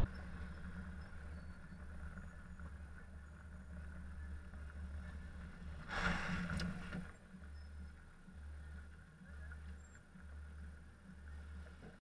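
Low, steady hum of a car's engine and road noise picked up by a camera mounted on the car's side. About six seconds in comes a short rush of noise, lasting about a second and louder than the rest, as another car comes in close alongside.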